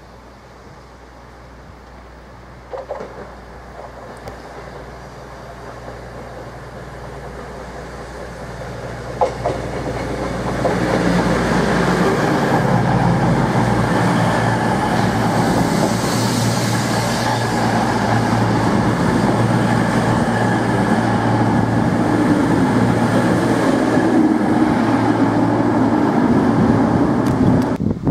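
A CrossCountry Voyager diesel multiple unit approaches, its underfloor diesel engines a low steady hum at first with a couple of faint clicks. About ten seconds in it arrives and passes close at speed, a loud rumble of engines and wheels on the rails that holds for about fifteen seconds and then cuts off suddenly.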